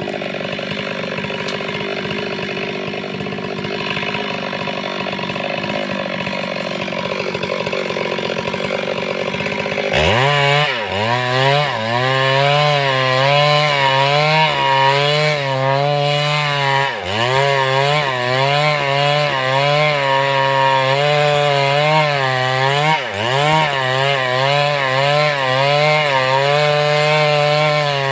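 Stihl MS 382 two-stroke chainsaw running at full throttle while ripping lengthwise through a log to mill boards. About ten seconds in the sound switches abruptly to a louder, closer engine note. The pitch dips briefly and comes back up every five or six seconds.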